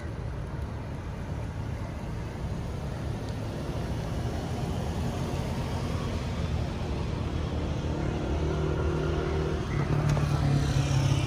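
Kia Sportage AWD's 2000 cc engine and road rumble as the car drives, growing steadily louder, with the engine note rising near the end as it picks up speed.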